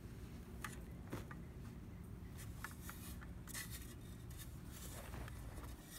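A steel shovel scraping into dry, stony soil and dropping dirt, with clods and pebbles pattering down in short crunchy ticks.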